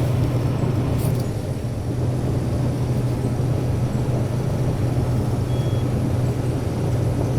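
Case 2388 combine running steadily while harvesting corn, heard from inside its cab: a constant low engine hum under the even noise of the threshing and shelling machinery. There is a faint click about a second in.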